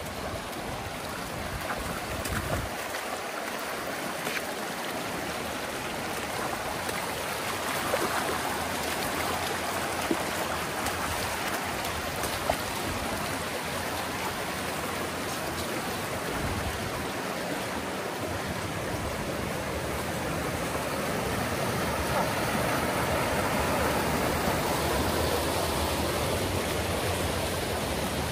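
River water rushing steadily over stones, growing a little louder about three-quarters of the way through, with a few faint clicks in the first half.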